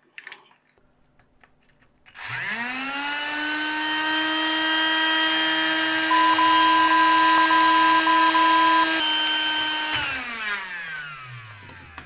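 The small DC motor and fan of a Silvercrest window vacuum start about two seconds in, the whine rising quickly to full speed, run steadily, then wind down with falling pitch from about ten seconds in. The motor starts by itself as soon as the new lithium cell is connected, without being switched on: a fault the owner traces to a corroded circuit board. A steady censor bleep sounds over it for a few seconds in the middle.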